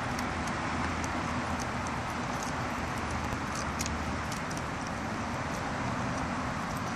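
Steady hum of road traffic, with light, scattered high clicks and jingles from a dog's metal chain collar.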